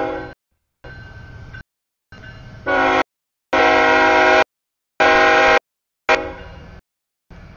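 Freight locomotive air horn sounding a chord in several blasts, the longest about a second, over the low rumble of the train. The audio is chopped into short pieces that start and stop abruptly with dead silence between them.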